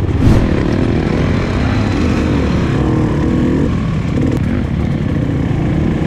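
Dirt bike engine running under load on a dirt trail, its pitch rising and falling as the throttle is opened and closed. It is heard from on the bike itself.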